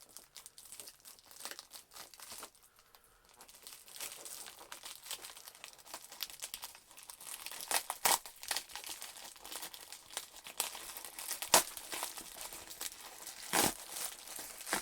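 Packaging of a mailed parcel being torn open and crinkled by hand: a steady run of crackling and rustling with several louder sharp rips and crinkles, the loudest about two thirds of the way through and near the end.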